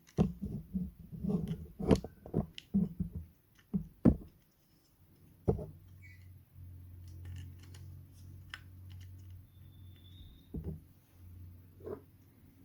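Quick irregular clicks and knocks for the first four seconds, then a few single knocks, from handling and fitting the parts of a car window regulator mechanism. A low steady hum runs underneath.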